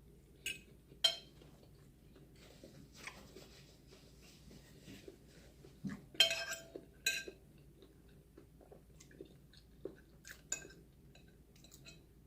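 A person chewing food, with several sharp clinks of cutlery on a plate, the loudest about a second in and about six seconds in.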